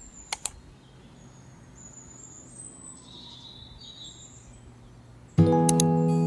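Faint birds chirping over a low steady hum, with two sharp clicks just after the start. About five seconds in, gentle acoustic guitar music comes in loudly.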